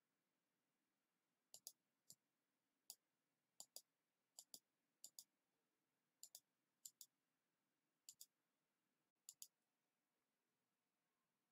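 Computer mouse clicking: about eighteen sharp clicks, many in quick pairs, spread from about a second and a half in to near the end, over near silence.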